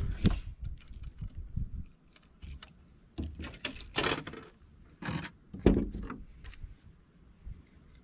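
Clicks, light rattles and a few louder knocks from handling a crappie, hook and line by hand in a small fishing boat, with wind rumbling on the microphone. The loudest knocks come at the start and about six seconds in.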